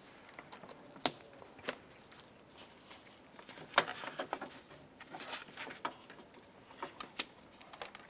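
Door water shield being lined up and pressed into place on the inner door: faint rustling and crinkling handling noise, with scattered light clicks and taps.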